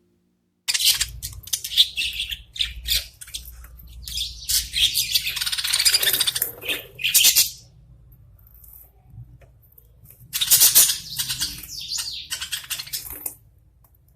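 Pet budgerigars chattering and chirping in quick high-pitched bursts, in two bouts with a lull of a couple of seconds between them.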